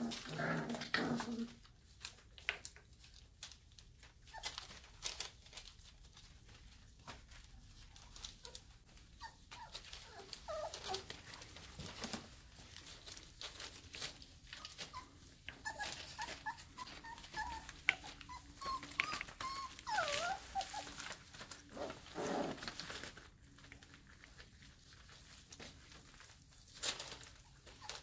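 A litter of 4.5-week-old Airedale Terrier puppies at play, with short, squeaky whimpers and yips bunched in the middle and scattered scuffs and scratches from their paws and bodies.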